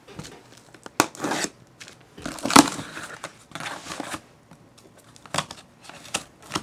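A cardboard shipping box being handled and its packing tape slit open with a small metal tool: irregular scrapes, rustles and knocks of cardboard. There is a sharp click about a second in, and the loudest scraping comes about two and a half seconds in.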